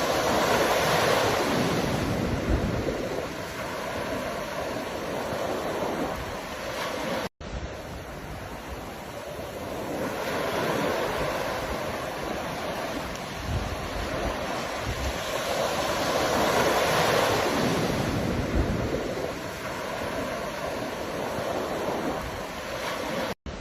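Ocean surf washing onto a shore, swelling and ebbing in slow waves, with the sound cutting out for an instant about seven seconds in and again near the end.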